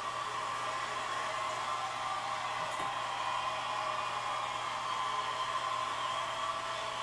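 Studio audience cheering and applauding, heard through a television's speaker as a steady wash of crowd noise.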